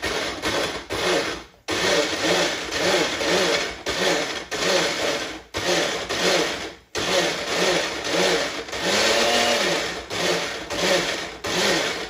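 Personal blender pulsing a thick wild garlic pesto mix of leaves, hazelnuts and oil. The motor runs in bursts and its pitch wavers up and down. It stops briefly about three times before running again.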